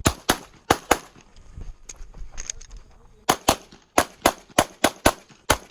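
Glock 34 Gen 5 9mm pistol fired rapidly: four quick shots in the first second, then after a pause of about two seconds a fast string of nine shots, roughly five a second.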